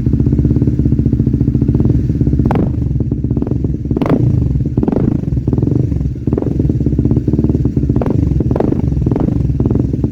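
Honda CBR150R's single-cylinder engine idling steadily while warming up, with a few brief sharp clicks over the running.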